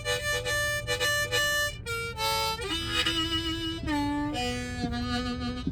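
Harmonica (mouth harp) playing a tune, often two or more notes at once: a run of short notes, then longer held notes in the second half.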